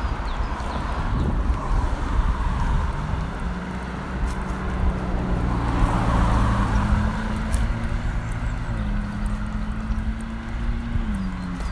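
Street traffic noise: a steady low rumble, with a vehicle engine's hum that holds and shifts in pitch through the middle and fades out near the end.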